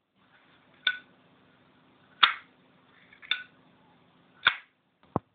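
Zippo lighter's hinged metal lid clicking open and shut: five sharp metallic clicks, roughly a second apart.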